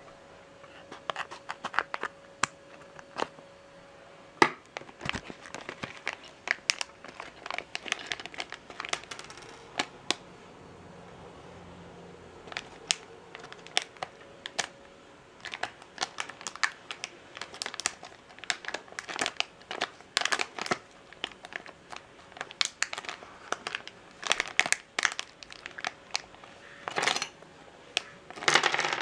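Plastic LEGO minifigure blind bag crinkling and crackling as it is handled and pulled open, with louder bursts of crinkling near the end.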